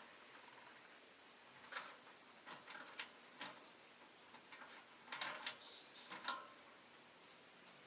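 Rosy-faced lovebird making a few short, sharp chirps and clicks, scattered and faint, in small clusters about two, three and five seconds in.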